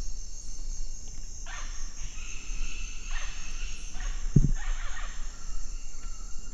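Amazon rainforest soundscape: a steady high-pitched insect drone, with four or so animal calls that fall in pitch spread through it and one short low sound just past the middle.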